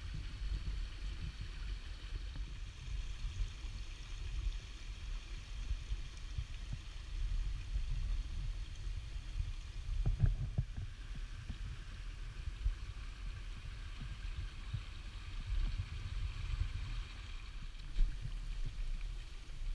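A small rocky forest creek running steadily over stones, under a low, uneven rumble of wind and movement on the camera's microphone. There is a louder bump about halfway through and another near the end.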